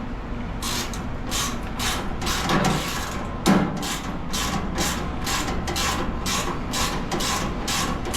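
A screw being turned into the fryer's sheet-metal body with a hand tool, making short rasping strokes about two to three a second, with one heavier knock about halfway through.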